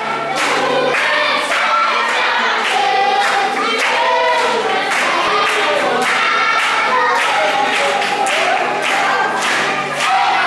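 A large group of schoolchildren singing together as a choir, many voices on one song.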